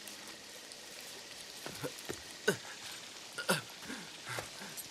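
Steady rain falling. Over it, about five short sounds slide down in pitch, starting about two seconds in and the last near the end.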